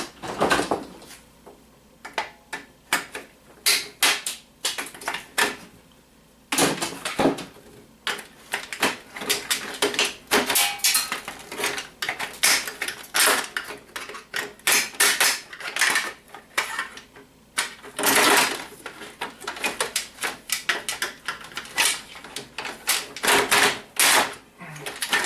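Irregular clicking, knocking and rattling of plastic and metal printer parts being handled and pried apart by hand during a teardown to free the LCD panel.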